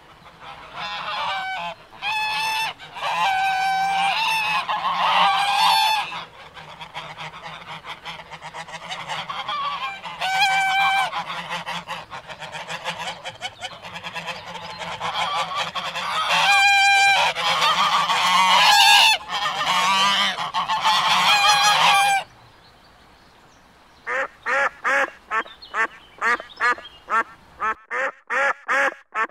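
Domestic geese honking: a run of loud, nasal honks, then after a short pause a quick series of short honks, about three a second.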